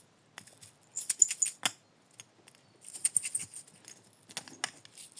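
Small container of sequins being shaken, the sequins rattling in three short bursts of fine clicking with pauses between.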